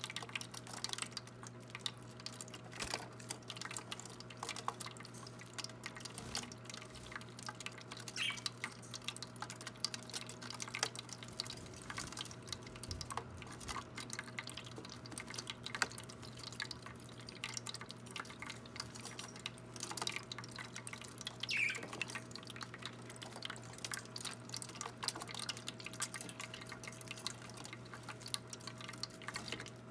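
Small electric bird-bath water fountain splashing and dripping steadily, with a steady low hum underneath. Parakeets give a few brief chirps.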